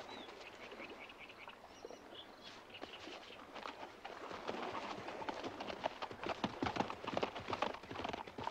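Horse hooves pounding on dirt as a horse sets off at a gallop. The irregular beats start about three seconds in and get louder.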